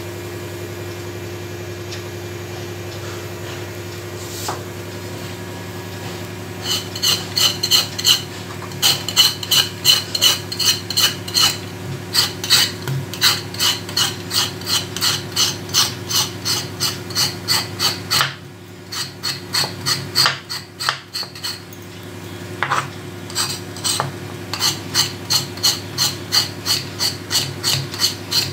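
Kitchen knife scraping the ridges and skin off a ridge gourd (turai) on a plastic cutting board: quick rasping strokes, about four a second. The scraping starts a few seconds in, pauses briefly past the middle and resumes, over a steady low hum.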